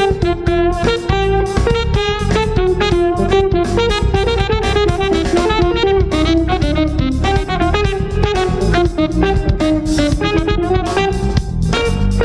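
Live jazz band playing: electric guitar out front over electric bass and drum kit, with quick-moving melodic lines.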